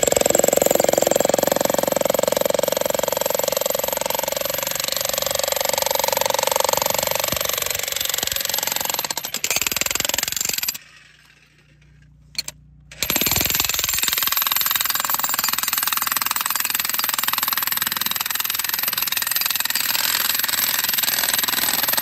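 Jackhammer chiselling into a shale rock face, running almost continuously. It stops for about two seconds near the middle, then starts up again.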